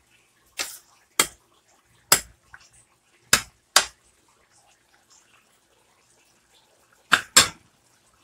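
Metal spoon knocking against the side of a stainless steel pan while stirring a thick coconut-milk stew. There are about seven sharp clinks at uneven intervals, then a pause of about three seconds before two quick clinks near the end.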